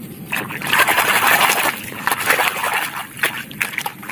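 Muddy puddle water splashing and sloshing as a plastic toy truck is swished through it to rinse off mud. The splashing is loudest for a second or two, then trails off into a few smaller splashes.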